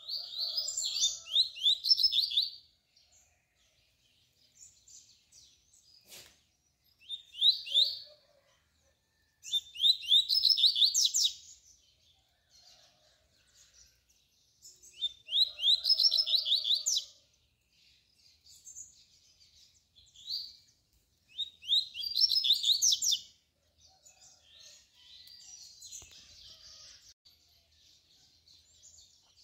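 Double-collared seedeater (coleiro) singing its tui-tui song: phrases of quick, high, rising notes a second or two long, repeated every few seconds with short pauses between.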